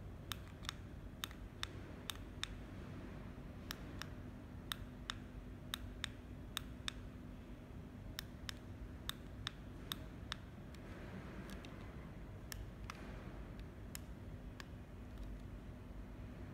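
Buttons on a small handheld wireless remote control being pressed over and over: about two dozen short, sharp clicks in quick runs, which stop about 13 seconds in. A faint steady hum sits underneath.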